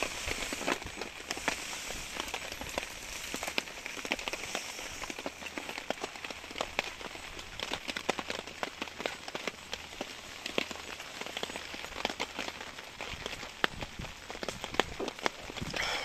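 Heavy rain falling on a Coleman hexa tarp overhead: a steady hiss with a dense, irregular run of sharp drop taps.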